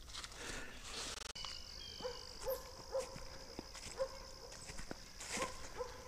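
Dog barking in the distance: faint, short barks coming every half second to a second from about two seconds in.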